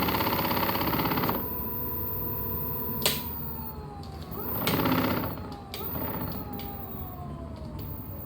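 Electric scooter motor whining on a test run after a rear brake replacement. A steady whine with rushing noise at first, then after a sharp click about three seconds in, whines that fall in pitch as it slows, with another burst of noise around five seconds in.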